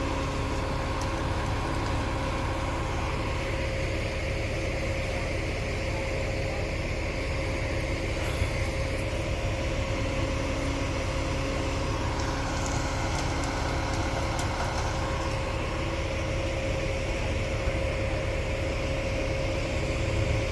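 Heavy construction vehicle's engine running steadily, a constant hum with a steady tonal whine over it.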